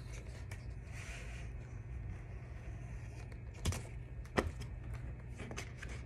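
Quiet room tone with a steady low hum, broken past the middle by two short taps about a second apart as a large picture book is handled.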